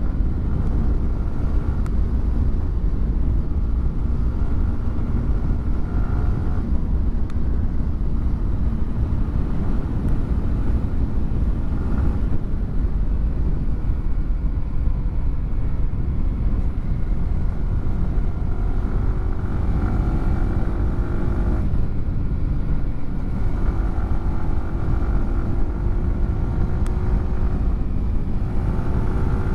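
Yamaha R15 M's 155 cc single-cylinder engine through a WRX GP3 aftermarket exhaust, running at speed under a steady wind rush. Its pitch rises in several pulls, each broken off briefly as the quickshifter snaps through an upshift.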